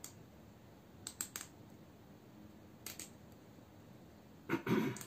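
Small clicks and handling noises of fingers working a piece of wooden toothpick into the split stem base of a rose cutting: a few sharp clicks, a quick cluster of them just after a second in, and a louder handling noise near the end.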